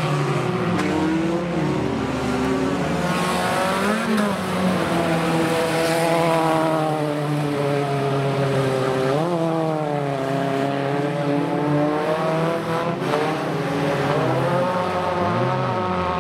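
Several speedway derby cars' engines running hard around the track, their notes overlapping and rising and falling as the drivers accelerate and lift off. One engine revs up sharply about halfway through.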